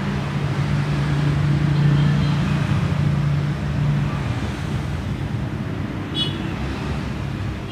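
A steady low hum over a rushing background noise, like passing traffic, swelling a little about two seconds in and slowly fading. A brief high chirp comes about six seconds in.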